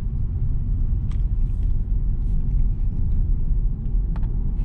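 Inside the cabin of a 2022 Mitsubishi Xpander Ultimate CVT driving uphill: a steady low rumble of its 1.5-litre four-cylinder engine and tyres on the road. Two faint clicks, one about a second in and one near the end.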